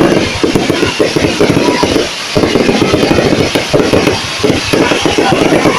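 Fireworks display going off in a dense, rapid run of bangs and crackles, with brief lulls about two seconds and four seconds in.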